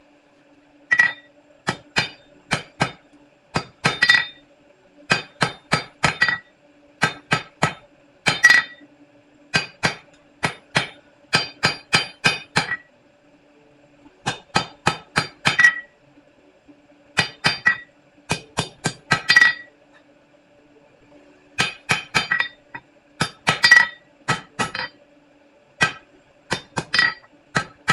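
Hand hammer striking hot steel bar stock on an anvil in a cleanup pass while drawing it out square: sharp ringing blows in runs of about four to six, roughly three a second, with short pauses between runs. A low steady hum runs beneath.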